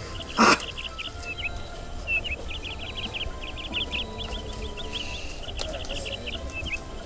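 Many small birds chirping in quick, repeated runs of short notes, as in a forest. About half a second in there is one loud, brief burst.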